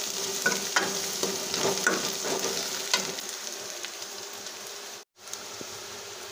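Chopped onion, garlic and cumin sizzling in oil in a steel kadai, with a metal ladle scraping and clicking against the pan as it is stirred. The stirring stops about three seconds in and the sizzle carries on more quietly, cutting out for a moment about five seconds in.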